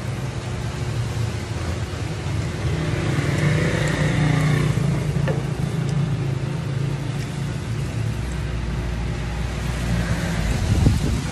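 Steady low engine rumble with a noisy haze above it, swelling a little a few seconds in.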